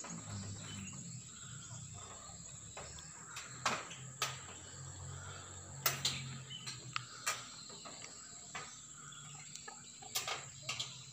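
Outdoor ambience: a steady high-pitched whine over a low hum, broken by scattered sharp clicks and knocks.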